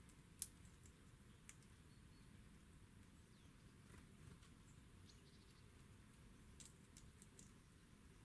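Near-quiet outdoor background with a few sharp clicks: one louder about half a second in, a fainter one at about a second and a half, and a cluster of faint high ticks near the end.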